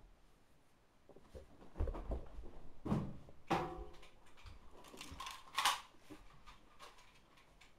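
Irregular knocks, thumps and handling noises in a small wooden room, with a short creak about three and a half seconds in.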